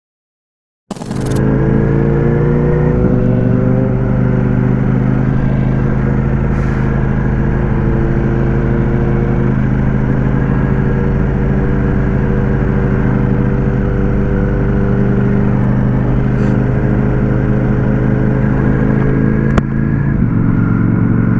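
Ducati Panigale V4S's V4 engine running at a steady speed. It cuts in abruptly about a second in, with small shifts in pitch around three seconds in and again near the end.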